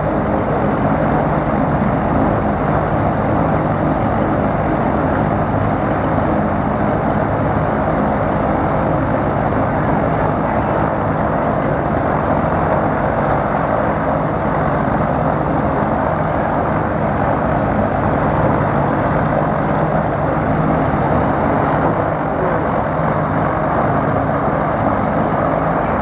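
Cessna 337G Super Skymaster's two piston engines and propellers, mounted push-pull, running at a steady drone with dense rushing noise. The pitch and loudness hold even throughout.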